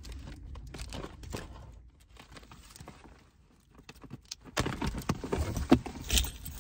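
A cardboard box of rubber car floor mats being handled and opened: scattered knocks, scrapes and rustles, quieter in the middle and busiest over the last two seconds.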